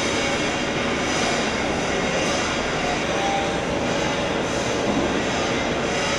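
Heavy-duty cylindrical roll grinding machine running: a steady, even mechanical noise with a faint hum and no knocks or breaks.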